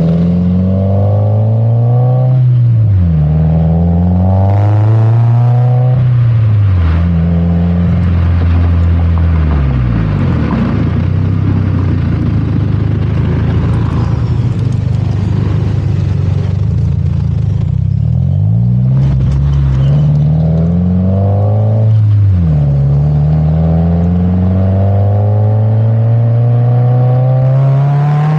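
2017 Subaru WRX's turbocharged flat-four engine through an Invidia R400 exhaust, accelerating hard through the gears: the pitch climbs and drops back at each upshift, several times, with a steadier stretch of cruising midway.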